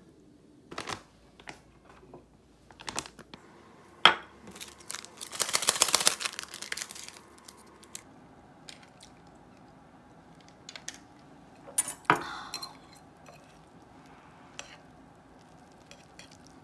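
A metal fork clinking and scraping on a ceramic plate while instant noodles are mixed, with scattered clicks. About five seconds in, a plastic sauce sachet crinkles and tears for a couple of seconds. A sharp clink of metal on the plate, ringing briefly, comes about twelve seconds in.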